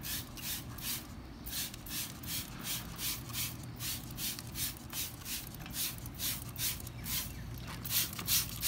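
Trigger spray bottle of wheel cleaner being squeezed over and over, a short hiss of spray with each pull, about two to three a second, with a brief pause near the end.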